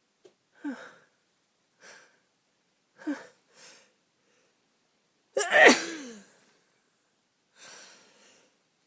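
A person with a cold sneezing: a few short gasping breaths, then one loud sneeze about five and a half seconds in, and another breath drawn in near the end.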